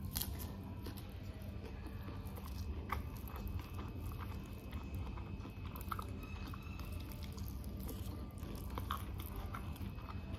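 Close-miked chewing and biting into KFC crispy fried chicken with nasi Padang, with scattered short crunches of the fried coating.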